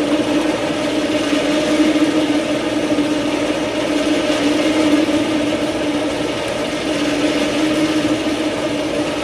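A steady mechanical drone holding one constant pitch, with no change in speed.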